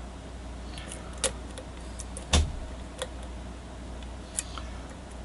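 Lock pick and tension wrench clicking against the pins inside a pin-tumbler challenge lock during picking: a few scattered light metal clicks, the loudest about two seconds in with a dull knock. A steady low hum lies underneath.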